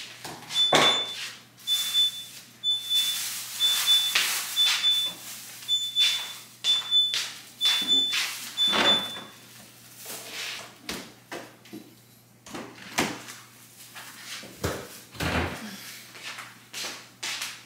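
A refrigerator's door-open alarm beeping at a high pitch about once a second, over the clinks and knocks of bottles and containers being moved on the fridge shelves. The beeping stops about halfway through, and a few heavier thumps come near the end.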